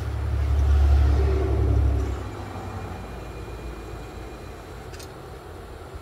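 Electric actuator of a remote-controlled transducer bracket running as it lowers the mounting plate. A low rumble swells over the first two seconds and then drops away, leaving a faint steady whine until about halfway through.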